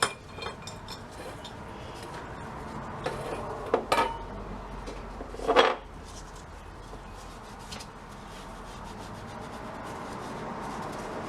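Parts of a vintage jawbreaker vending machine's release mechanism handled on a workbench: a few knocks and clinks about four and five and a half seconds in, with rubbing and handling noise between.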